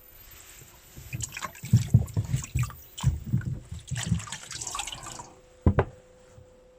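Water sloshing and splashing as taro roots are washed in a washing machine tub, in irregular bursts with low thuds for about four seconds, then one sharp knock near the end.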